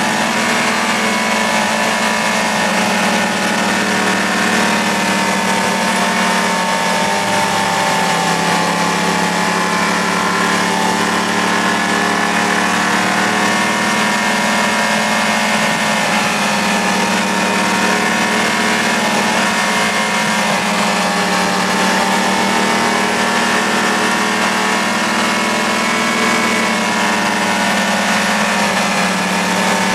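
Sport motorcycle engine heard from on board, running at fairly steady riding revs with its pitch easing off and picking up again a few times, over steady wind rush.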